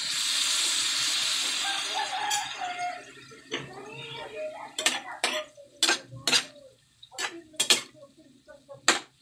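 Water poured into a hot wok of simmering fish and vegetables, a loud hissing rush for the first two and a half seconds. Then a metal spatula knocks and scrapes against the wok in quick irregular strokes as the stew is stirred.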